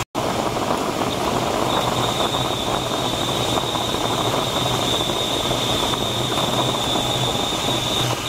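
Steady rush of airflow in a DG-1001 glider's cockpit, with a steady low hum underneath and a thin, steady high tone.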